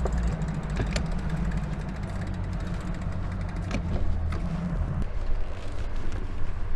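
Pickup truck engine running steadily as it tows a bass boat on its trailer up a boat ramp, heard from the boat's deck, with a few short knocks.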